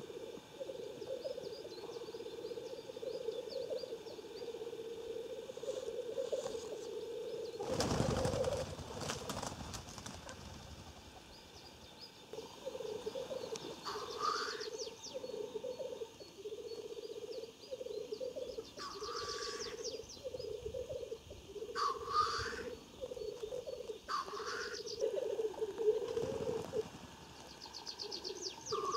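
Male black grouse at a lek: a nearly unbroken low, bubbling, rolling coo, cut by four or five harsh hissing sneeze calls in the second half. About eight seconds in comes a loud rushing burst, the loudest moment.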